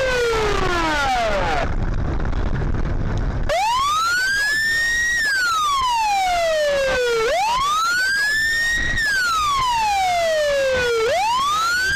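A siren wailing: its tone sweeps up over about a second and a half, then slides back down over about two seconds, repeating about every four seconds. About two seconds in, the siren drops out for nearly two seconds, leaving only a low rumble of road and engine noise.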